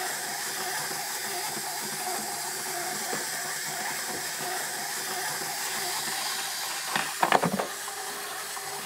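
A steady hiss, with a short cluster of sharp clattering knocks about seven seconds in.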